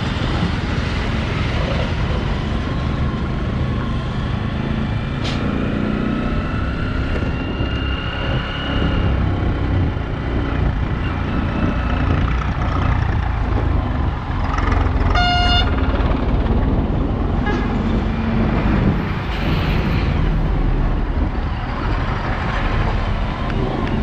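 Motorcycle riding on a rough unpaved road: steady wind on the microphone and road noise, with trucks passing. A vehicle horn toots once, briefly, about fifteen seconds in.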